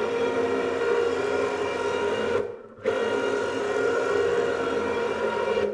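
Servo motor driving an Apex Dynamics planetary gearbox and pinion along a steel rack, moving the Z-axis carriage along the CNC gantry: a steady whine of several pitches, running smooth. It runs in two stretches with a brief stop a little before halfway.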